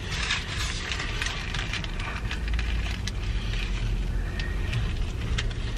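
Close-miked eating: chewing with scattered crackles and clicks, over the steady low hum of a car's interior.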